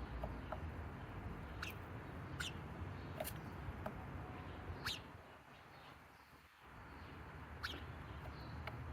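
Small birds chirping: about six short, sharp calls, each sliding quickly down in pitch, spaced irregularly, over a low background rumble.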